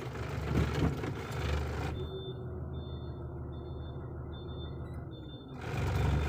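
A truck's engine running steadily while it reverses on a test drive of its newly fitted clutch, with a faint reversing alarm beeping in short, even pulses through the middle.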